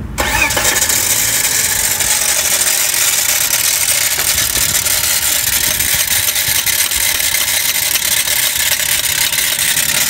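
Car engine catches right away and runs while the starter motor stays engaged and keeps spinning with it, a loud, steady whirring that starts suddenly at the key turn. This is the sound of a starter that fails to disengage after the engine starts.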